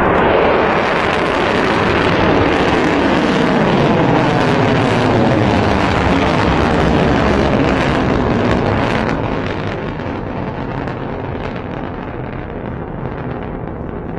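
The rocket motor of an Ababeel ballistic missile climbing after launch: a loud, steady rushing noise with a slowly falling sweep in it, growing somewhat fainter after about nine seconds.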